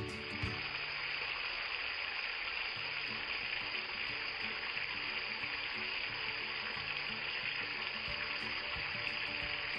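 Steady, even hiss of water, with faint background music underneath.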